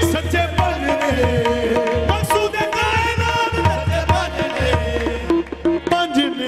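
Qawwali music: harmonium holding sustained notes over a steady tabla beat.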